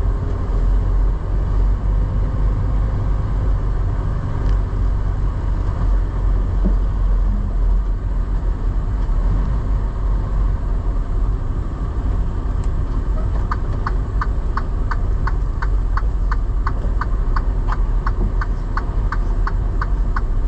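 Semi truck's diesel engine running with a steady low rumble while the truck is manoeuvred to park. From about two-thirds of the way in, the indicator flasher clicks evenly, about three clicks a second.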